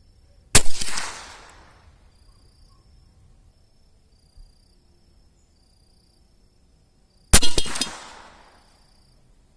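Two .22LR rifle shots fired with high-velocity CCI ammunition, almost seven seconds apart, each sharp crack followed by an echoing tail that dies away over about a second.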